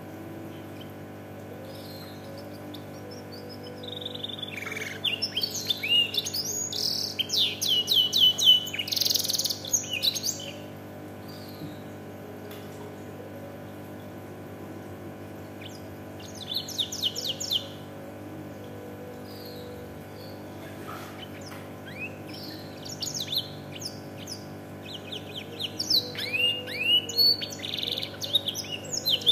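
Domestic canary singing blackthroat-style song that it has been tutored to copy: bursts of fast high trills and chirps, separated by pauses of several seconds, over a steady low hum.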